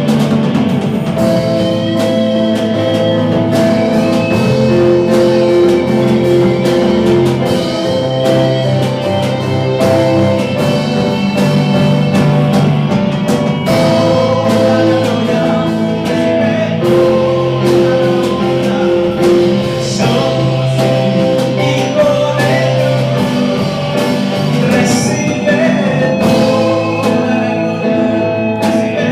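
A Christian worship song: a voice singing over guitar and band with held chords.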